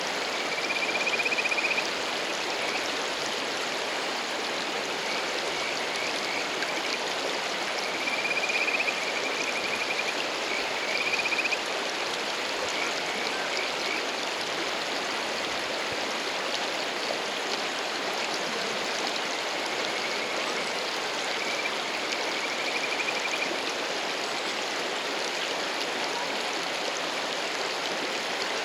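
Rushing mountain stream, with Kajika frogs (Buergeria buergeri) giving the males' courtship call over it: short, high, trilling calls that rise slightly in pitch. There are several in the first half and a few more about two-thirds of the way in.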